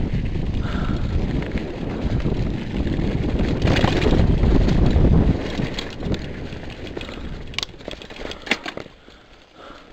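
Full-suspension mountain bike rolling fast over rough dirt trail, with the loud rumble of tyres and rattling frame. After about five seconds it slows and goes quieter, with a few sharp clicks and rattles.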